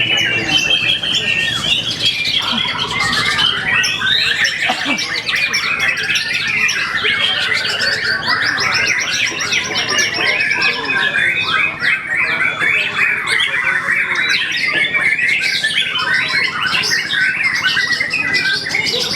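Caged contest songbirds singing loudly and without a break, a dense overlapping stream of rapid chirps, trills and whistled phrases, with song packed with mimicked calls of other birds.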